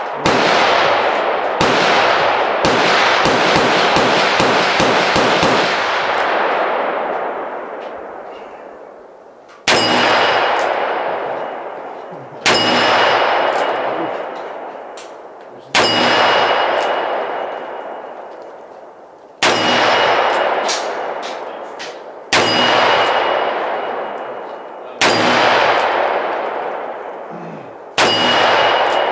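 Smith & Wesson 686 Plus revolver firing .357 Magnum, single heavy reports about three seconds apart, each followed by the steel plate target ringing as it is hit. A dense rapid crackle of cracks fills the first six seconds or so.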